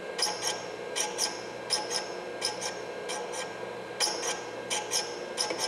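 Valve-grinding machine running with a steady hum while a valve's stem tip is swept back and forth across its grinding stone, a short high-pitched grinding rasp at each pass, in pairs about every 0.7 seconds. Light cuts grinding the new valve stem to length.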